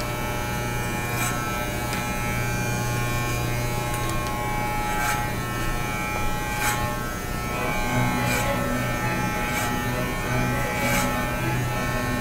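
Corded electric hair clippers, fitted with a number 8 guard, buzzing steadily as they cut hair, the buzz shifting slightly about eight seconds in. A few faint clicks are scattered through it.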